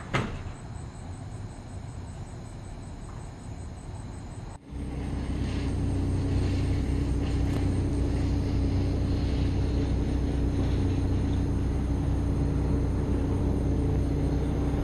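Outdoor background with a faint, steady high drone, switching abruptly about four and a half seconds in to the louder, steady low hum of an idling vehicle engine.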